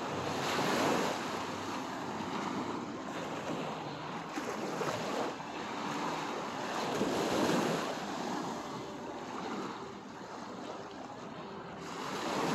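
Small waves lapping and washing up over a sandy shore, the wash swelling and falling away every few seconds.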